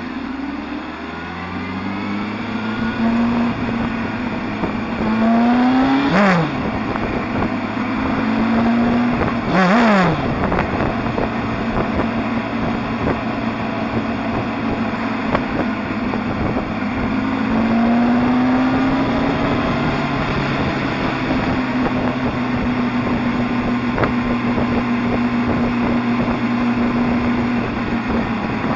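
Motorbike engine heard from the bike while riding: its pitch climbs under acceleration and drops sharply twice, about 6 and 10 seconds in, as at gear changes, then runs at a steady cruise from about 20 seconds on.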